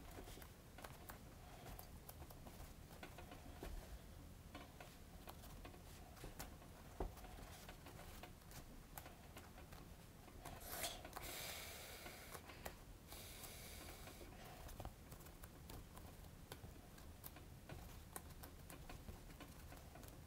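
Faint handling sounds of hands pressing and bending contact-cemented foam pieces together: scattered light clicks and rustles, with a longer brushing rustle about eleven seconds in.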